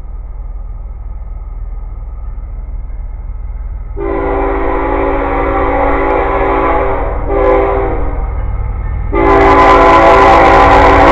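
CSX diesel freight locomotive sounding its multi-chime horn for a road crossing as it approaches, over a low engine rumble. A long blast starts about four seconds in, then a short one, then after a pause a louder blast near the end as the train draws close.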